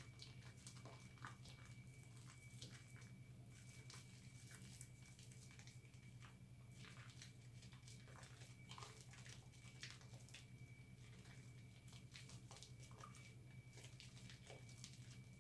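Hands squeezing and rubbing a cloth-wrapped lump of recycled soap in sudsy water: faint, irregular wet squishing and crackling of lather. A steady low hum and a thin high whine run underneath.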